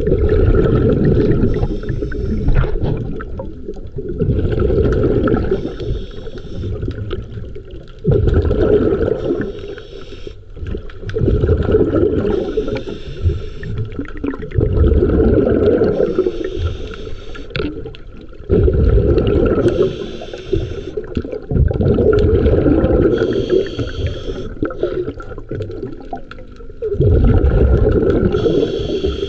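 Scuba diver breathing underwater through a regulator: a short hiss on each inhale, then a bubbling rumble of exhaled bubbles, about one breath every three to four seconds.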